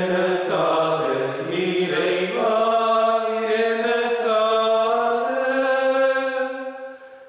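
Devotional chanting: a singing voice holding long, slowly gliding notes of a hymn, breaking off briefly near the end.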